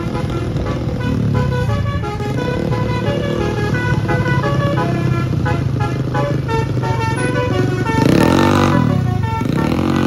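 Tour bus's Basuri telolet musical horn playing a melody of short stepped notes over the drone of motorcycle and bus engines, with a loud rising-and-falling sweep about eight seconds in.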